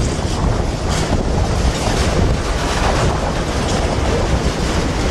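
Freight train of covered hopper wagons rolling past, a steady rumble of steel wheels on the rails, with wind buffeting the microphone.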